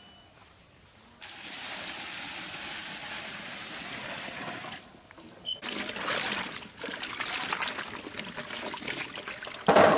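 Water poured in a steady stream for about three seconds, then, after a brief pause, uneven splashing and trickling with small clicks, and a loud knock near the end.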